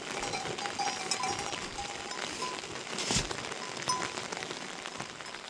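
Rain pattering steadily, with a few short ringing notes scattered through it and one sharp knock about three seconds in.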